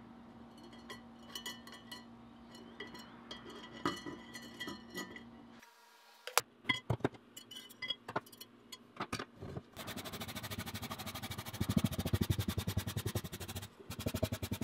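Steel files clinking against glass and then clacking down one by one onto a workbench. After that comes a wire brush scrubbing a file in rapid back-and-forth strokes, brushing degreaser-loosened grime out of its teeth.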